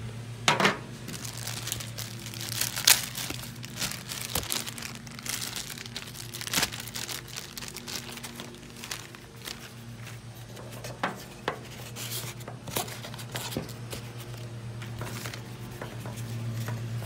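Cardboard box and packing material rustling, crinkling and scraping in irregular bursts as the boat is handled out of its box, over a steady low hum.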